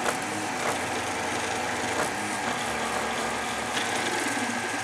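Prusa i3 3D printer printing: its stepper motors whine in short tones that rise and fall as the print head and bed move back and forth, over a steady fan hiss, with a few faint ticks.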